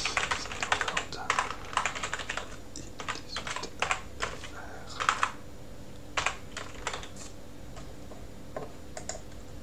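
Typing on a computer keyboard: a quick run of keystrokes for the first five seconds or so, then a few separate key presses spaced out toward the end.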